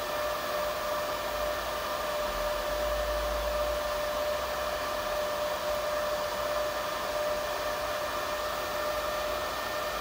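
Small electric cooling fan running steadily: an even whir with a steady whine over it.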